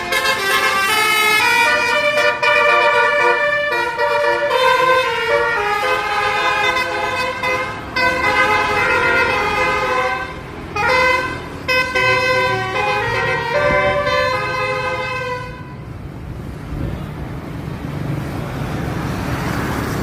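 A bus's telolet 'basuri' multi-tone air horn playing a tune, stepping from note to note with a couple of short breaks, for about fifteen seconds. Then the horn stops and the bus's engine is heard, rising in pitch near the end.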